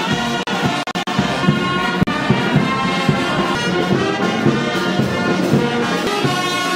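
Brass band music playing, with trumpets and trombones, cut by a few brief dropouts in the first two seconds.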